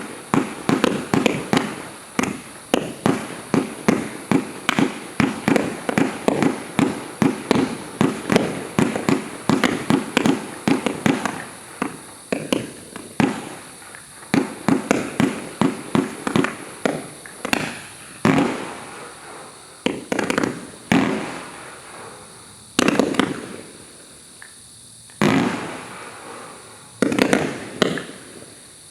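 An 88-shot Category 4 firework cake firing, its shots going off in quick succession at about three a second. After about 17 seconds the shots thin out to one every second or two, each with a longer trailing decay, until the last few.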